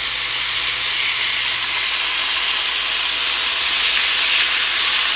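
Flour-coated walleye pieces frying in hot oil in a pan, a steady sizzle.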